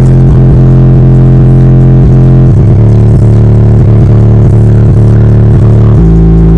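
Bass-heavy music played at full level through two Sundown Audio Zv3 18-inch subwoofers in a ported box, heard inside the car's cabin. Long, very low bass notes shift pitch every few seconds, and the recording is overloaded.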